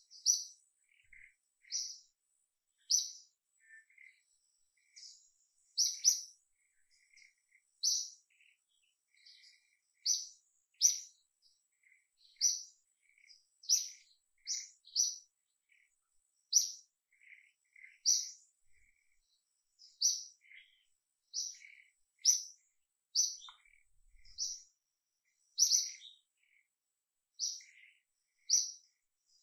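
Bird chirping over and over: short, sharp, high notes about once a second, with fainter, lower chirps between them.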